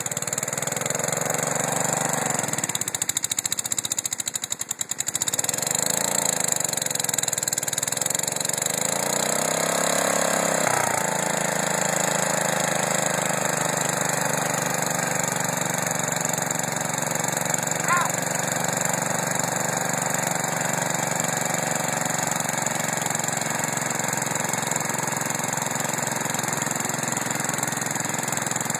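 Wheel Horse garden tractor's engine working under load in deep mud, its revs rising and falling several times and sagging briefly early on, then holding steady from about eleven seconds in.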